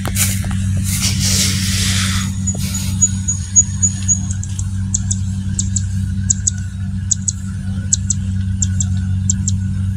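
Kubota DC-70G Plus combine harvester's diesel engine running steadily with a low hum. A loud rushing hiss fills the first two seconds, and from about halfway through, short high chirps come in pairs roughly every second.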